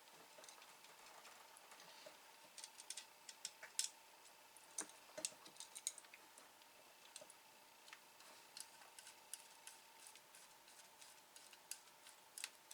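Light, irregular clicking and ticking of small screws and a screwdriver working on the plastic housing of a Hakko FR-301 desoldering gun as it is screwed back together. The clicks come thicker from about two seconds in, over a faint steady hum.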